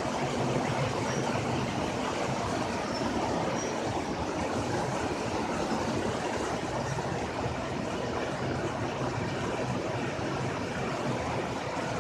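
Steady rushing of running water from a mountain spring, an even noise without breaks.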